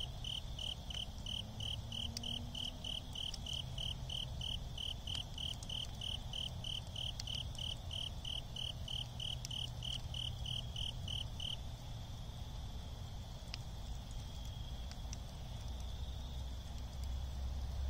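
A cricket chirping in an even rhythm of about four chirps a second, which stops about two-thirds of the way through. Occasional faint pops come from the smouldering embers, over a low rumble that swells near the end.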